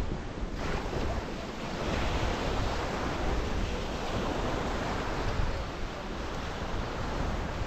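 Small waves breaking and washing up on a sandy beach, a steady surf wash, with wind buffeting the microphone.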